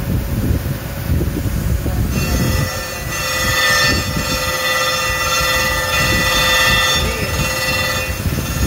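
Crankshaft grinder's abrasive wheel grinding a crankshaft journal: a steady high-pitched whine of several tones starts about two seconds in and stops shortly before the end, over a steady low rumble from the machine.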